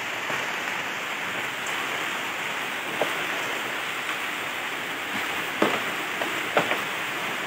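Steady hiss of water over floodwater, like rain falling on the surface, broken by a few short sharp knocks, one about three seconds in and a couple near the end.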